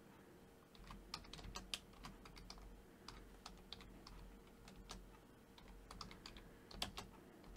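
Computer keyboard typing: faint, irregular keystrokes, starting about a second in.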